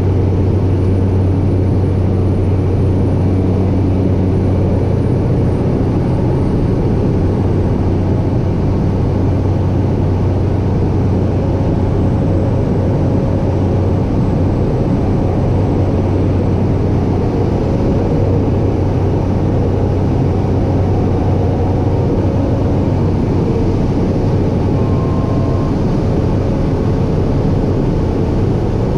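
Cessna 208B Caravan's PT6A turboprop engine and propeller running steadily in flight, heard from inside the cockpit as a constant loud drone with a strong low hum.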